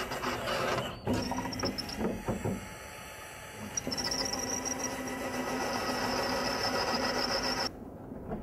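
A small machine running steadily with a held tone, broken by abrupt changes about a second in and near four seconds, then dropping away sharply near the end.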